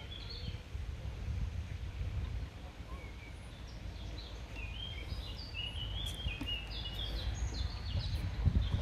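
A songbird singing short, quick chirping phrases, busiest from about four to seven seconds in, over a continuous low rumble.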